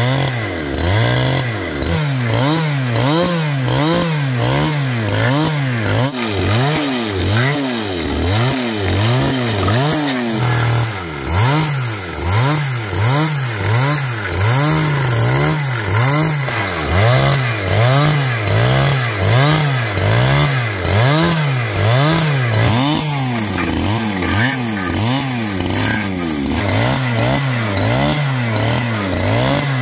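Two-stroke chainsaw cutting wood, its engine pitch dropping and rising over and over, about once a second, as the chain bites and frees.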